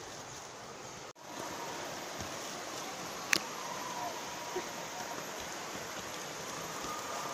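Steady rushing of water from the falls and the stream below the forest path, with a sharp click about three seconds in. The sound cuts out for an instant about a second in.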